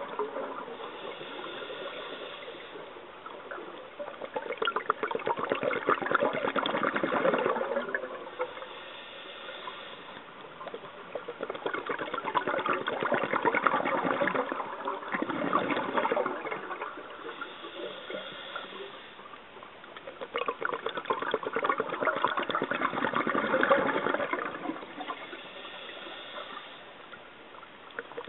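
Scuba regulator breathing heard underwater: three long exhales of bubbling about every nine seconds, each followed by a quieter hiss of inhalation.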